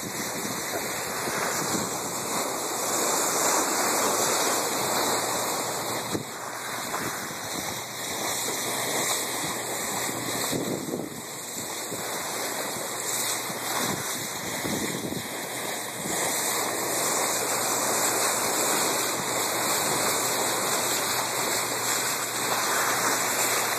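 Rushing water of the R/V Roger Revelle's bow wave as the ship moves through open sea, with wind buffeting the microphone: a steady rush that swells and eases slightly.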